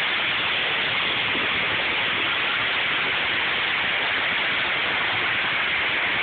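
Steady, even rushing noise with no breaks, strongest in the upper range and at a constant level.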